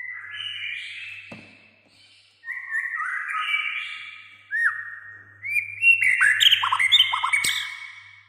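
White-rumped shama (murai batu) singing a fast, varied song of whistled notes, slurs and quick sweeping phrases, pausing briefly near the start and growing busiest and loudest in the second half.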